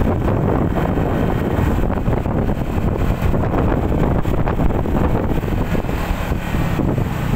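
Wind rushing over the microphone of a motorbike in motion, with the bike's engine running steadily underneath.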